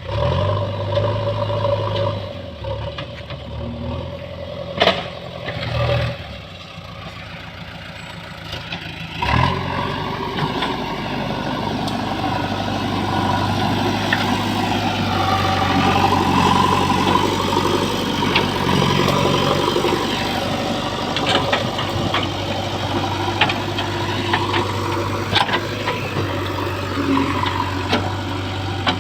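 JCB 3DX backhoe loader's diesel engine running at work, its level rising about nine seconds in and then holding steady under load. A few short sharp knocks sound over it.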